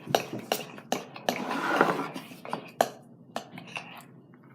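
A utensil clinking and scraping against a mixing bowl while stirring a glue and shaving-cream slime base: irregular sharp taps, with a longer scrape about one and a half seconds in.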